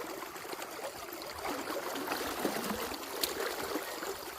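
Mountain stream water rushing steadily over its bed.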